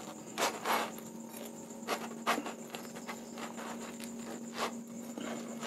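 Table knife and spoon cutting a toasted sandwich in half on a metal griddle pan: several short scrapes and taps of metal on the pan and through the crust.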